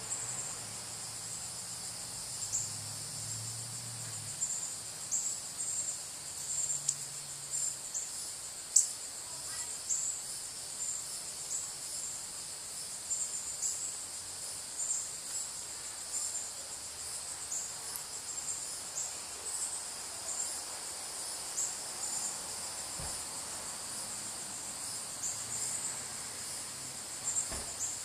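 Steady high-pitched insect chorus, with short louder chirps standing out irregularly over it and one sharp click about nine seconds in.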